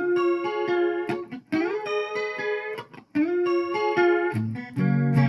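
Electric guitar playing a lead figure of triad shapes with chorus and slapback delay: the same short phrase three times, each opening with a slide up into a held note, then lower notes about four seconds in.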